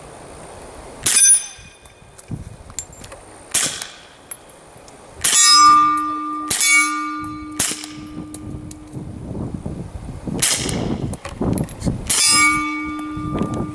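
Suppressed shots from an FN FNP-45 .45 pistol with a Banish 45 suppressor, about six single shots a second or more apart. After two of them a hit steel target rings with a long, steady tone.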